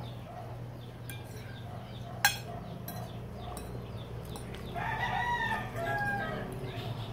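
A rooster crowing once, a long held call with a short break, about five seconds in, over a steady low hum. A single sharp click sounds a little over two seconds in.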